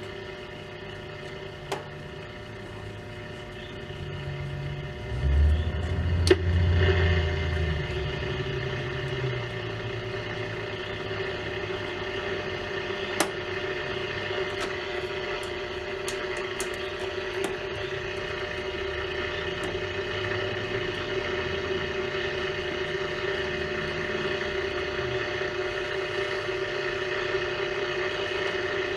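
Hallicrafters S-120 shortwave receiver hissing with static and a steady whine through its speaker while it is tuned across a band without picking up a station. There are a few sharp clicks, and a louder low rumble from about five to nine seconds in.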